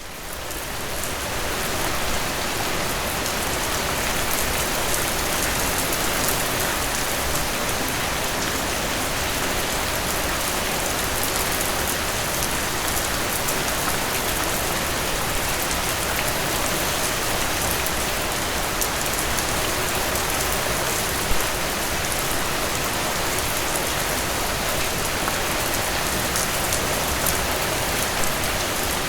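Steady rain falling on a surface: an even hiss with a fine patter of drops, fading in over the first couple of seconds.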